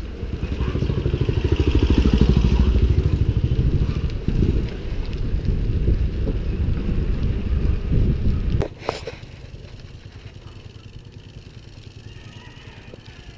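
Heavy wind and riding rumble on a mountain bike's camera while pedalling along a concrete lane. About two-thirds of the way through it drops off suddenly, leaving the rear hub's freewheel ticking quickly and evenly as the bike coasts.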